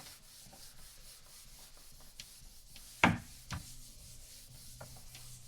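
Faint rubbing and handling noise with a few soft clicks, the sharpest about three seconds in.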